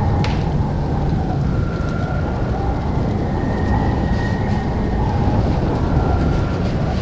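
Strong wind blowing, a steady rushing noise with a faint high whistle that comes and goes.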